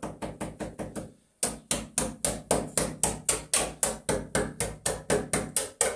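Rapid, even knocking of a hand tool against the mortar bed where an aerated concrete block is being laid. A quicker, softer run at the start breaks off about a second in, and louder knocks follow at about four to five a second.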